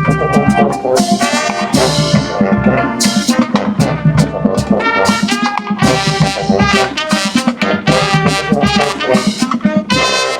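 High school marching band playing loud, with a brass section of trumpets and trombones over drums in short, punchy hits; the playing stops right at the end.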